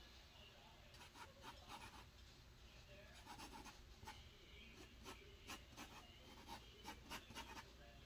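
Faint scratching of a drawing tool on a drawing surface, in short strokes that come in several quick runs.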